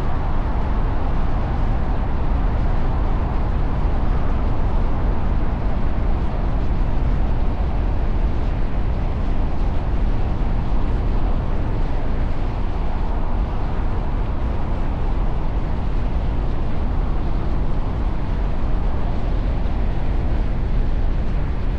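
Steady city traffic noise: a continuous rumble of vehicles, heaviest in the low end, with no single horn or event standing out.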